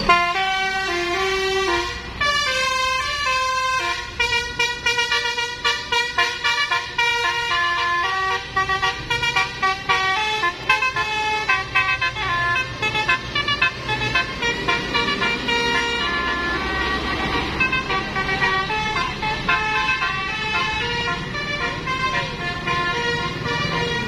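Bus's Basuri musical telolet horn playing a quick melody, note after note, over the low running of the engine.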